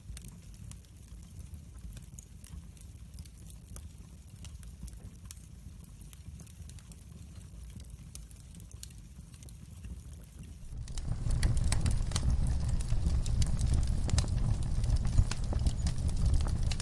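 Wood fire crackling in a fireplace: scattered sharp pops and snaps over a low rumble. About eleven seconds in, the sound suddenly becomes much louder and fuller.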